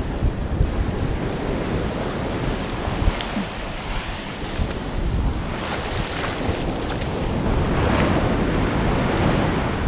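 Small surf waves washing up onto a sandy beach, with wind buffeting the microphone; a brief sharp click about three seconds in.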